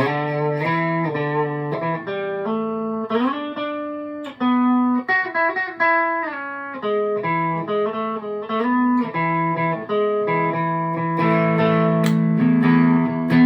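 Electric guitar played through effects pedals: a melodic line of single picked notes with a few slides, moving into held, ringing chords near the end.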